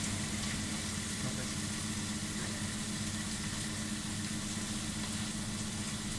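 Pieces of meat sizzling on a hot flat-top griddle, a steady hiss, over the constant low hum of a kitchen extractor fan.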